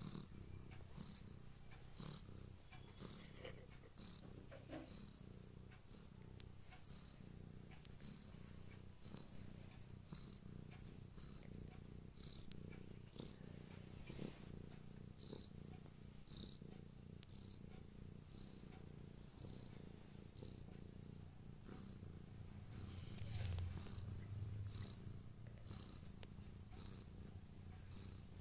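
Domestic cat purring faintly and steadily while kneading, the purr swelling briefly about three-quarters of the way through. Soft regular rustles, a little more than one a second, come from its paws and claws working the shaggy pillow.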